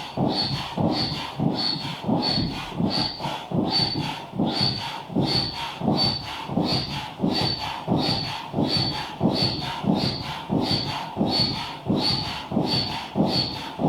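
Manual air pump inflating an inflatable boat: even, rhythmic pumping strokes of rushing air, about one and a half a second, each with a short high whistle.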